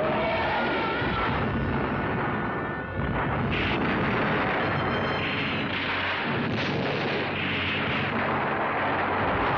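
A string of explosion sound effects over a continuous rumble of blasts and fire. The din dips briefly, then a fresh blast hits about three seconds in, followed by several more bursts.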